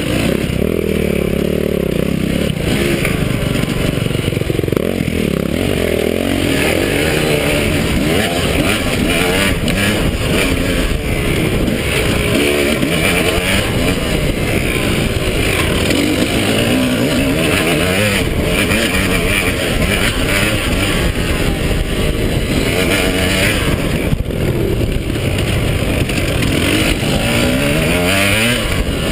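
Two-stroke KTM 300 dirt bike engine being ridden hard along a rough trail, its pitch rising and falling continuously with the throttle.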